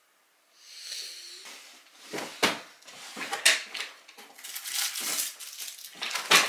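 Rummaging through small objects: rustling and handling noise with several sharp clicks and knocks, the loudest near the end.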